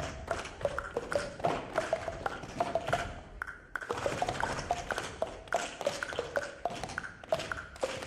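Quick percussive taps, about three or four a second, each with a short ringing tone, thinning out briefly about three and a half seconds in.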